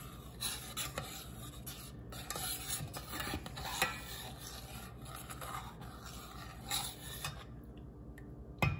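Metal spoon stirring a thick, creamy soup in a stainless steel saucepan, scraping and rubbing against the pan's bottom and sides in irregular strokes.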